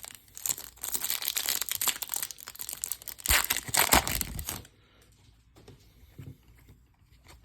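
Foil wrapper of a trading-card pack being crinkled and torn open, a dense crackling that is loudest about three to four seconds in and stops short near the middle, followed by faint handling clicks.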